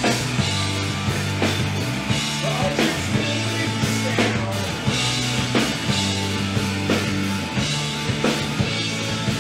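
Rock band rehearsing: a drum kit keeps a steady beat under held electric bass notes and electric guitar.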